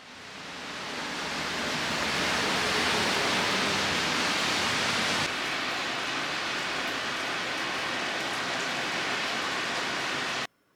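A steady rushing hiss that fades in over the first two seconds, drops slightly about halfway through and cuts off abruptly near the end.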